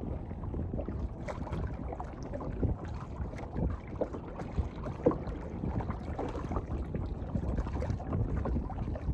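Wind rumbling on the microphone and water lapping against a boat hull, with scattered light clicks and knocks.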